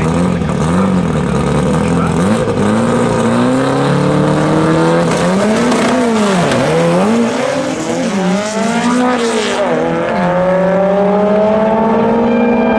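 Volkswagen drag car's engine revved up and down repeatedly on the starting line, then launching about ten seconds in, its pitch climbing steadily as the car pulls away down the strip.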